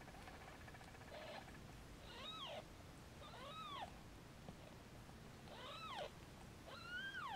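Newborn kittens mewing: five short, high-pitched cries, each rising then falling in pitch, spaced about one to two seconds apart and faint.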